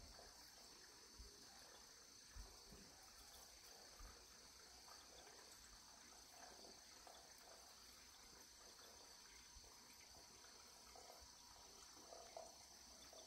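Near silence: faint outdoor ambience with a steady high-pitched hiss and a couple of soft knocks.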